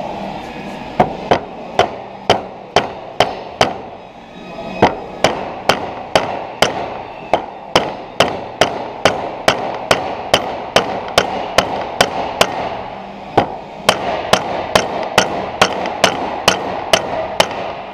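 Mallet blows driving a new bushing into a BMW E36 differential's aluminium housing cover. A steady run of sharp strikes about two a second, in three runs with two short pauses.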